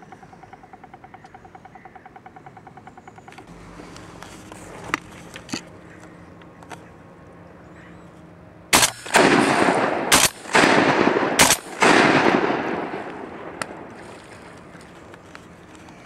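Three shotgun shots, about a second and a half apart, each followed by a long echoing roll that fades over a couple of seconds.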